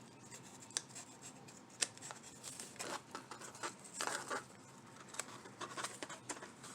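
Small craft hearts being handled and pushed through their holes on the garland string: scattered light clicks, scrapes and rustles.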